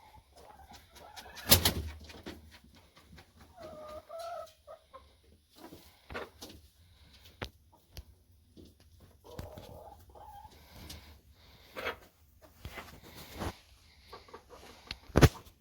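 Chickens clucking softly now and then, among scattered short clicks and rustles. Two sharp knocks stand out, about one and a half seconds in and near the end.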